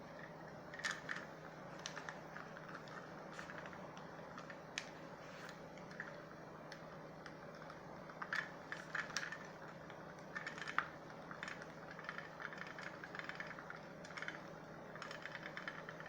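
Small plastic clicks and taps, scattered and irregular, as a headphone earcup is handled and fitted back together, over a steady low hum.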